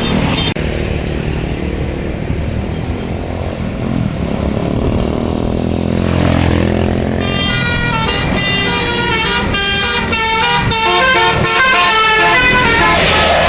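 A bus's engine runs and rises in pitch about six seconds in. Then, about seven seconds in, a 'telolet basuri' multi-tone bus horn plays a fast melody of short notes that step up and down in pitch.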